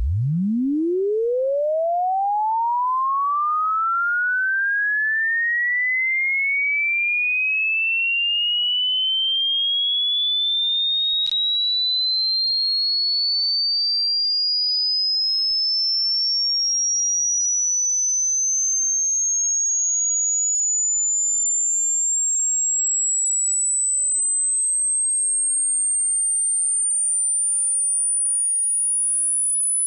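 A pure sine tone sweeping steadily upward in pitch, from a deep hum to a thin high whistle: a hearing-test frequency sweep. The pitch climbs quickly at first, then more and more slowly.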